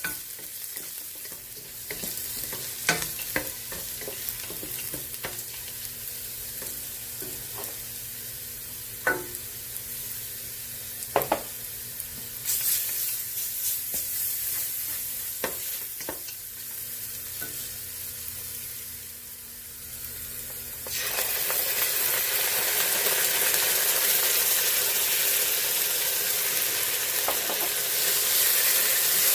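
Food sizzling as it fries in a pan, with scattered sharp clicks of a utensil stirring against it. About two-thirds of the way through, the sizzling suddenly gets much louder and fuller.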